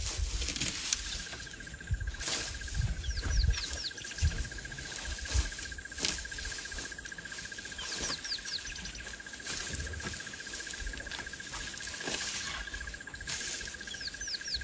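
Insect drone (one steady high-pitched tone) with bird calls: three quick runs of falling whistled notes, several seconds apart. Occasional sharp snaps and low thumps.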